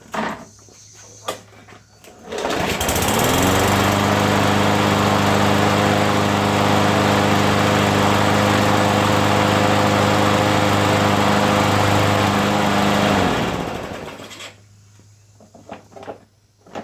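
Craftsman push mower's Briggs & Stratton 550E series 140cc engine starting on the pull about two seconds in and running steadily, then winding down and stopping near the end. It runs after its carburetor was cleaned and refitted, curing a no-start caused by stale fuel left in over winter.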